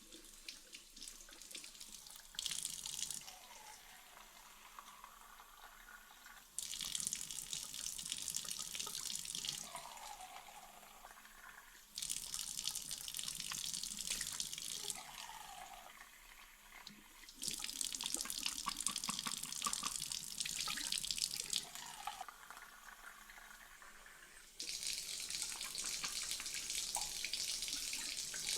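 Tap water running and splashing as a vacuum part is rinsed under it, the splashing swelling loud in five stretches of a few seconds each with quieter running water between.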